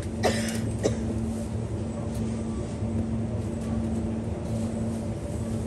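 Steady hum of supermarket refrigerated display cases and store ambience, with two brief sharp sounds within the first second.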